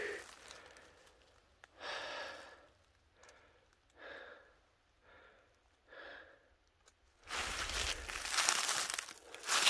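A person breathing out heavily: five laboured, sigh-like exhalations about a second apart. From about seven seconds in there is a run of rustling and crunching.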